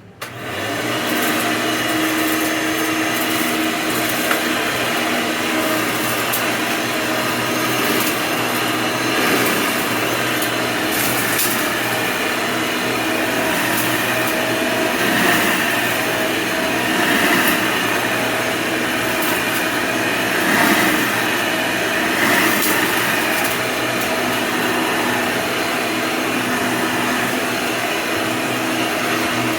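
Hoover upright vacuum cleaner switched on at the start, its motor and fan coming up to speed and then running steadily, with scattered faint ticks over the hum.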